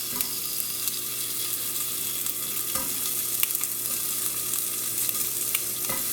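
Cut-up bacon sizzling steadily in a hot frying pan as it renders its grease and starts to brown, with a few sharp clicks scattered through it.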